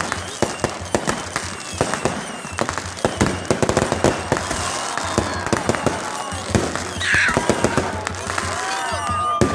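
Fireworks going off: a dense, unbroken crackle of many bangs and pops.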